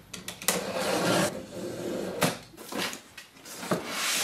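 Cardboard box flaps being pulled open: rubbing and scraping of cardboard, with a few sharp knocks, one of them about two seconds in.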